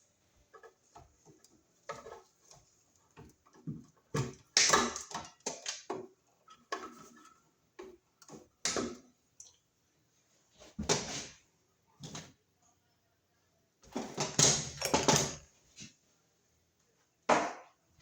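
Irregular scraping, rustling and light knocks of hands pulling broken drywall debris out of a freshly cut wall opening. A few louder scrapes stand out.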